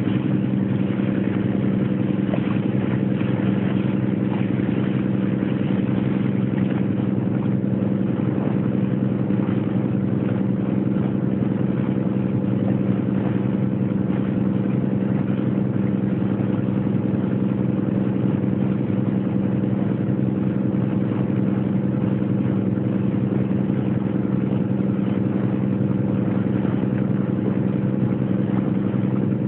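A boat's engine running at a steady cruising speed, a constant drone that does not change, with the hiss of water and wind over it.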